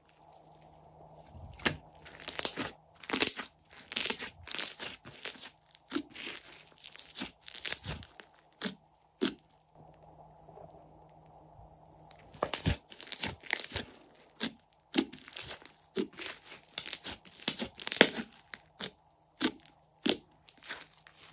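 Crunchy slime full of foam beads squeezed and poked by hand, making dense, irregular crackles and pops, with a quieter spell near the middle while it is stretched.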